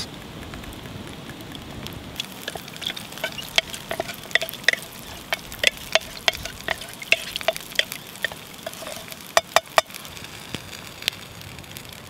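Wooden spoon stirring mint sauce in a stainless steel mug, scraping round and knocking against the sides in irregular taps, each with a short metallic ring. A few louder knocks come together a little after 9 seconds in.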